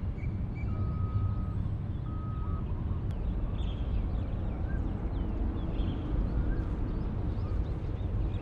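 Distant jet airliner engines, a steady low rumble that grows a little louder near the end. Birds chirp faintly over it, including two short whistled notes near the start.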